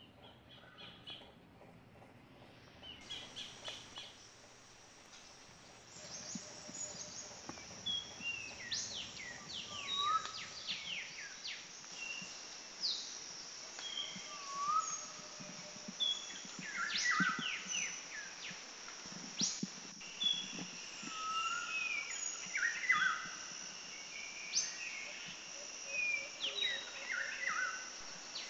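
Birds chirping and calling: many short whistled notes and quick sweeping chirps over a steady high-pitched hiss. The birdsong starts a few seconds in and grows busier.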